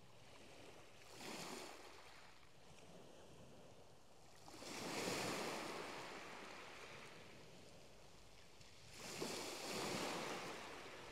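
Small waves breaking on a shingle beach, three in turn, each swelling up and washing back over a couple of seconds. The second and third waves are the loudest.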